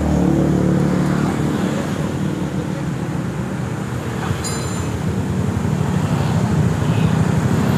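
Yamaha Mio scooter's single-cylinder four-stroke engine running through a newly fitted stainless racing exhaust and being revved on the throttle, the sound easing off in the middle and rising again near the end.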